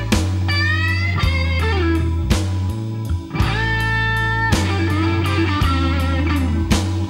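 Background music: an electric guitar plays lead lines with bending, gliding notes over a steady low bass.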